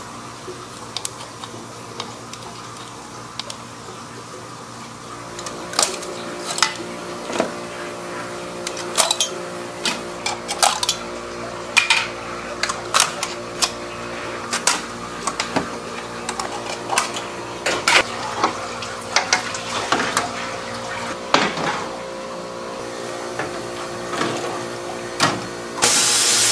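Steady hum of popsicle-making machinery with frequent, irregular metallic clinks and clatter of stainless-steel popsicle molds and trays, starting about five seconds in. A brief hiss near the end.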